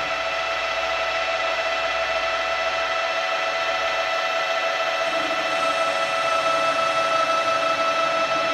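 Metal lathe running under power with a steady, multi-toned whine from its drive while a tool faces off the end of metal bar stock. The level rises slightly in the second half.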